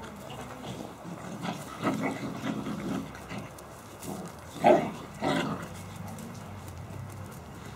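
Three-month-old Caucasian shepherd puppies growling as they play-fight, with two short, louder cries just past the middle.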